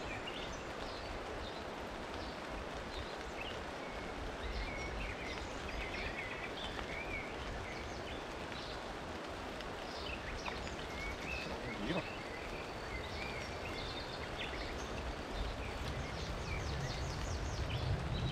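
Steady rain patter with birds chirping on and off. A low rumble builds near the end.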